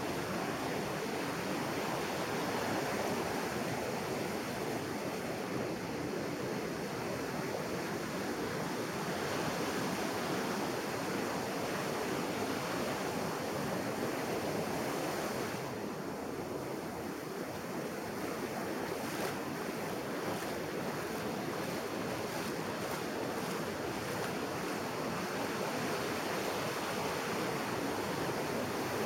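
Ocean surf breaking and washing up onto a sandy beach: a steady rush of waves.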